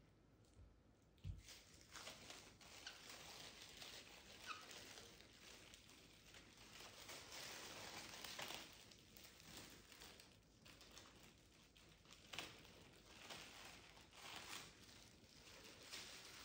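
Faint crinkling and rustling of plastic cling film being peeled off a glass bowl of risen yeast dough, with a few small clicks of handling.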